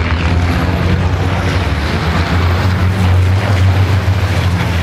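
Engines of diesel race trucks running hard as they pass in a pack: a loud, steady low drone.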